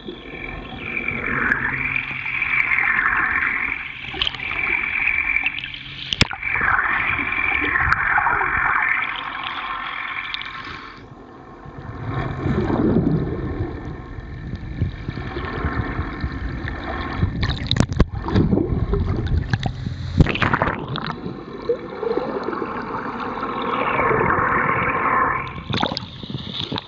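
Water rushing and gurgling around an underwater camera as it is towed through the sea. A whine falls and rises again three times.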